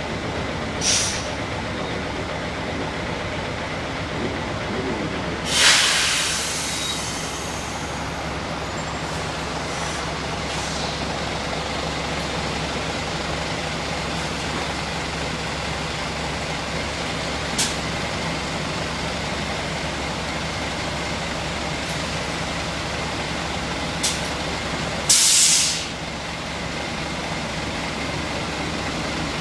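Hino Blue Ribbon City diesel city bus idling steadily, with sharp compressed-air hisses from its air system now and then. The two loudest hisses come about five seconds in and near the end, with a few brief ones between.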